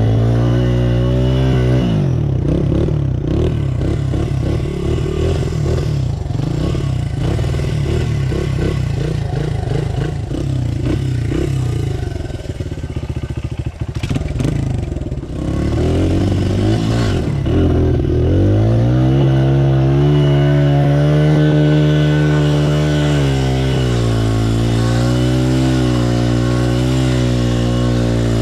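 Small dirt bike engine running under the rider, revs rising and falling over uneven trail. It eases off briefly about halfway through, then revs up and holds higher.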